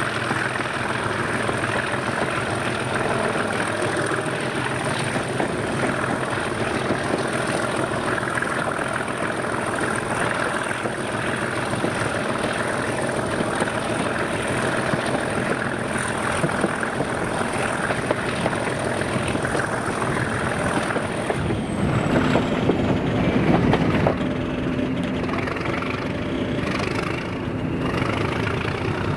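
Diesel locomotive engine running steadily at idle with a high whistle over it. About three-quarters of the way through the whistle falls away and a louder, deeper engine note swells for a couple of seconds before settling back; near the end a high whistle begins to rise again.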